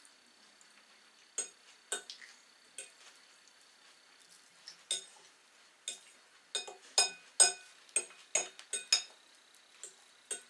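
Cutlery and dishes clinking: a run of sharp clinks and taps, sparse at first and busiest about two-thirds of the way in.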